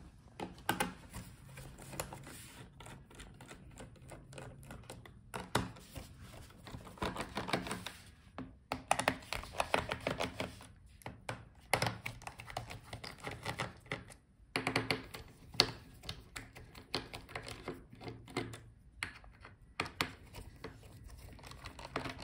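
Scattered light clicks and ticks, some in quick clusters, of a precision screwdriver turning out the bottom-cover screws of a Lenovo ThinkPad X13 Gen 2 laptop.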